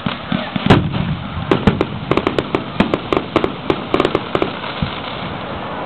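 Fireworks: a loud shell burst a little under a second in, then a quick string of sharp crackling pops for about three seconds.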